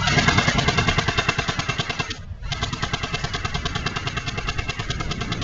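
Battery-powered airsoft Thompson electric gun firing on full auto: a rapid, even clatter of shots, in two long bursts with a brief pause about two seconds in.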